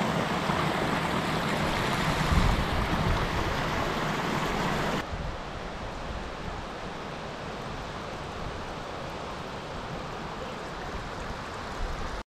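Small mountain stream rushing and splashing over rocks. About five seconds in, the sound drops abruptly to a quieter, duller rush of water, and it cuts out for an instant near the end.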